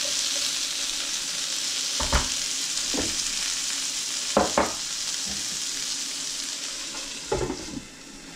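Pork meatballs and bok choy stems sizzling steadily in a hot skillet, with a few sharp clanks against the pan. Near the end a glass lid is set on the pan and the sizzle turns quieter.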